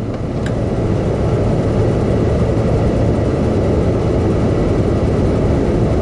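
Suburban RV furnace's blower fan running steadily with a low hum, the furnace powered up ahead of ignition; a single click sounds about half a second in.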